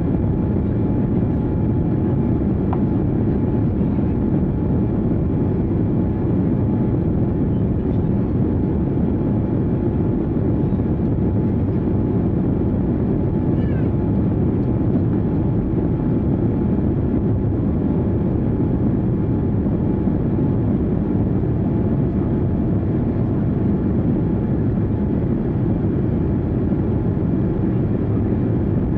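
Steady low rumble of engine noise heard from inside a vehicle, unchanging throughout, with a faint steady hum above it.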